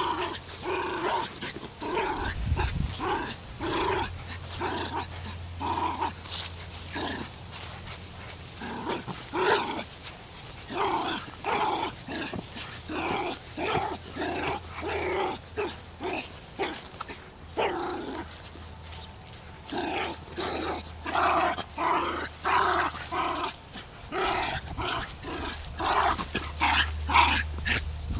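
Dogs play-growling while tugging on a toy between them: a long string of short growls, about two a second, with a few louder stretches.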